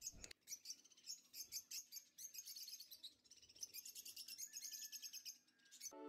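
Peach-faced lovebirds chirping faintly in quick runs of short, high chirps. Music comes in near the end.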